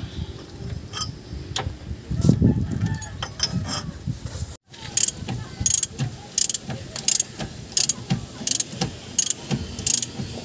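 Hand ratchet wrench being worked on the suspension, a short burst of clicks about twice a second from about halfway in, after some irregular metal knocks and clanks.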